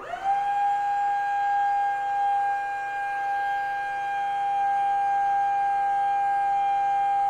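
Forklift hydraulic lift pump running as the mast raises a load, a loud steady whine that holds one pitch.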